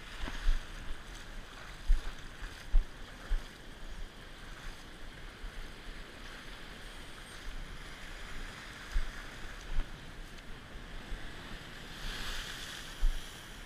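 Ocean surf and water washing around rocks, with a louder wash near the end and scattered low thumps on the microphone.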